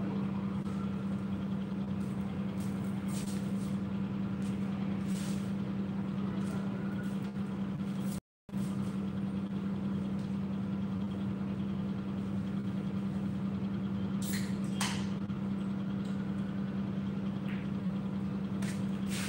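A steady low machine hum fills the room, broken by a few faint sharp clicks, two of them close together about three-quarters of the way in. The sound cuts out for a moment about eight seconds in.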